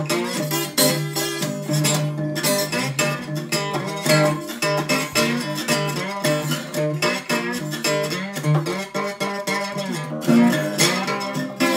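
Acoustic guitar fingerpicked in delta blues style, played slide with a glass Modelo beer bottle pressed on the strings; the melody's notes slide over a steady low bass note.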